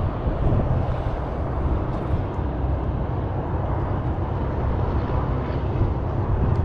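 Wind buffeting the microphone: a steady, unpitched low rumble.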